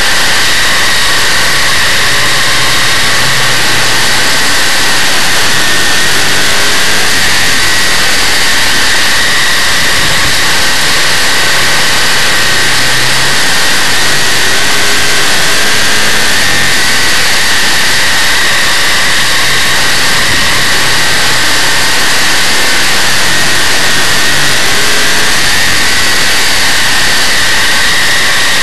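Dirt modified race car's big-block Chevrolet V8 running hard on track, heard from an onboard camera. It is very loud and steady, with little rise or fall.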